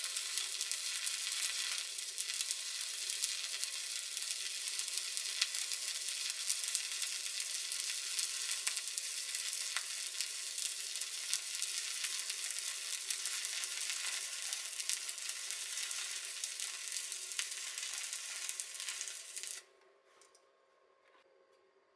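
Stick (SMAW) welding arc sizzling and crackling steadily as the electrode burns, then the arc cuts off suddenly near the end.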